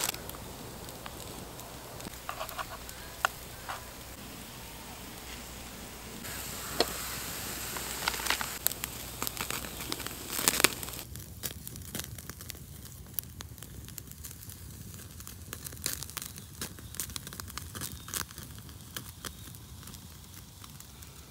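Wood campfire crackling with sharp pops, and oil sizzling under potato slices frying in a pan over the flames. The pops come thicker in the second half.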